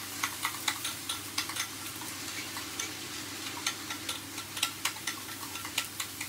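A spoon stirring a thick yogurt dip in a small ceramic bowl, clinking against the bowl's sides several times a second in an irregular rhythm. Underneath, a steak sizzles steadily in a frying pan.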